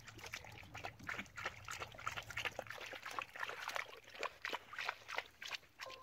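A dog wading in shallow, muddy pond water: many small irregular splashes and drips.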